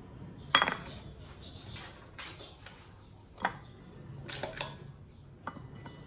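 A white ceramic plate clinks with a bright ring as it is set down on the counter about half a second in. Several lighter clinks and knocks of a fork against the plate follow.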